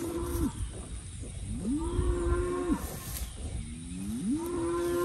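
A cow mooing three times. One moo ends just after the start, a full one of about a second comes near the middle, and another begins near the end. Each rises in pitch, holds steady, then drops away.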